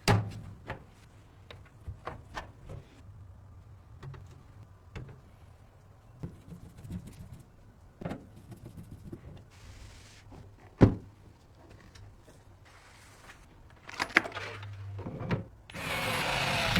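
Handling noises of PC parts being assembled: scattered clicks and light taps, one sharp knock about eleven seconds in, and a short hiss-like burst near the end.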